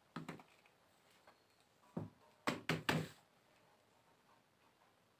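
Hand trowel knocking against a plastic plant bucket while soil is worked in around a transplant: one knock near the start, another at about two seconds, then three quick ones.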